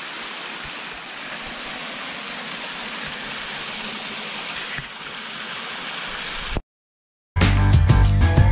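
Small woodland creek trickling and splashing over rocks, a steady rush of water that cuts off suddenly about six and a half seconds in. After a moment of silence, music starts near the end.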